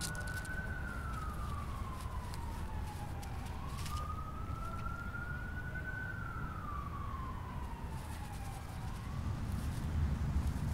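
An emergency vehicle siren in wail mode: one tone rising slowly, then falling, in two full cycles with a third beginning near the end. A steady low rumble runs underneath.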